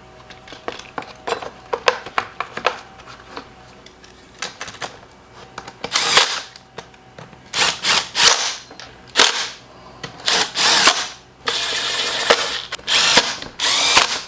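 Power drill/driver run in several short bursts, the sort of trigger pulls that drive in screws while reassembling the blower's housing, after a few seconds of light clicks of parts and screws being handled. The longest burst, about a second, comes near the end.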